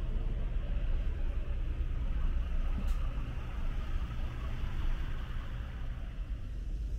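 Steady low rumble of city traffic with a hiss of rain and wet tyres on the road, and one sharp click about three seconds in.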